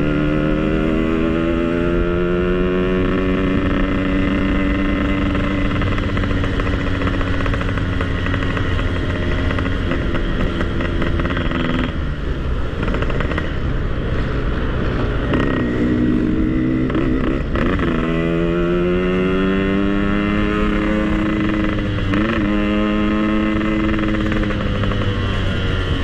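Yamaha RX-King's two-stroke single-cylinder engine riding under way. Its pitch climbs as it pulls through the gears, eases off around the middle, then rises again in several pulls near 15, 18 and 22 seconds.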